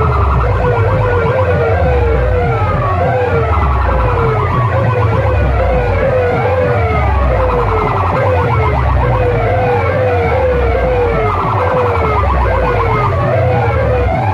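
A DJ competition track played loud through stacked horn loudspeaker boxes: repeated falling siren-like sweeps, about two a second, over a heavy pulsing bass, with a buzzy synth tone cutting in every few seconds.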